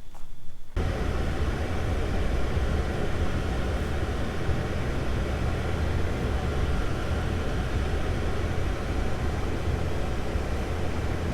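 Steady low road rumble and engine noise inside a moving car, starting suddenly about a second in.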